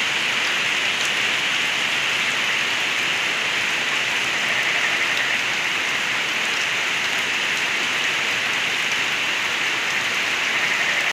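Heavy rain falling steadily, a dense even hiss with a few faint drips, as rainwater runs and gurgles.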